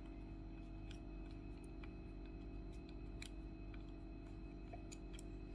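Faint, irregular small clicks of a jeweler's Phillips screwdriver turning a tiny screw out of a GoPro Karma gimbal's housing, over a steady low hum.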